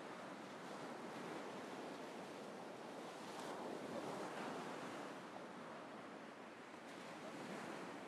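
North Sea surf breaking and washing up a sandy beach: a steady rush of water that swells about four seconds in and again near the end.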